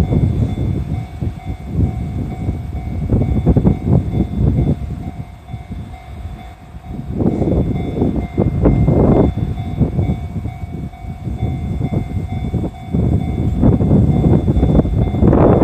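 A train rolling past over a level crossing: a low rumble that swells and fades unevenly, with clusters of clacks from wheels crossing rail joints.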